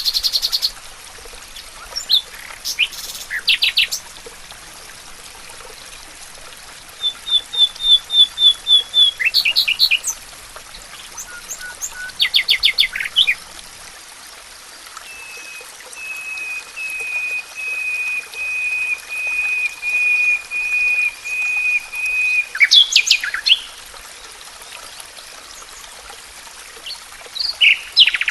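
Several songbirds singing in separate phrases over a steady hiss of running water. The phrases include a quick run of about nine high notes and a long series of repeated notes that grows louder before stopping.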